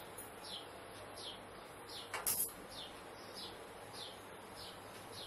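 A bird calling in the background with a short, high, falling chirp repeated evenly about every two-thirds of a second. A single sharp tap sounds about two seconds in.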